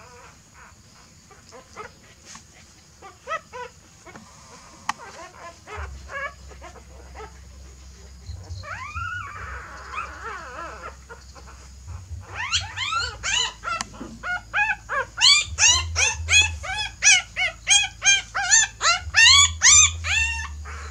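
Newborn puppies crying in high-pitched squeals while the mother dog noses and handles them: faint and scattered at first, then from about halfway through a fast run of loud cries, two or three a second, each rising and falling in pitch.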